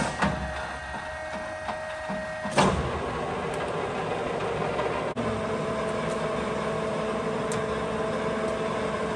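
LeBlond Makino engine lathe running under power, its headstock gearing giving a steady whine. A sharp clunk comes about two and a half seconds in as the spindle speed is shifted, and the running note changes again about five seconds in.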